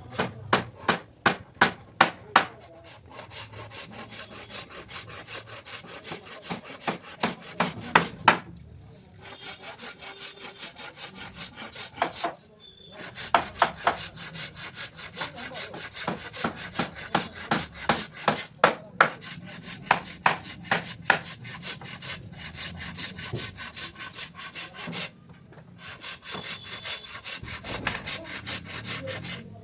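Hand saw cutting teak wood in quick back-and-forth strokes, about three a second. The strokes come in runs broken by short pauses.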